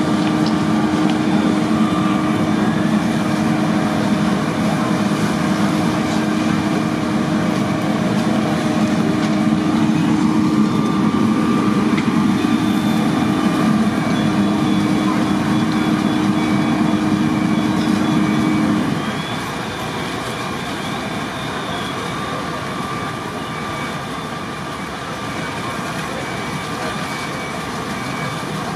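Fire trucks' diesel engines running steadily at the fire, a loud low drone over a constant rushing noise; the drone stops about 19 seconds in, leaving the rushing and a fainter engine hum.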